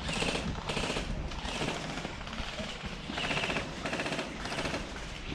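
Airsoft guns firing short rapid-fire bursts, about six bursts in a row with brief gaps between them.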